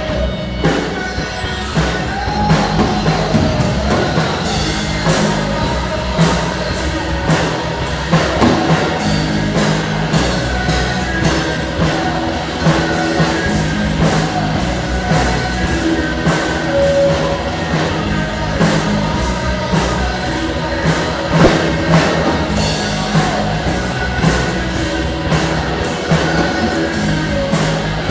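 Rock music with a drum kit playing a steady beat, and possibly singing mixed in.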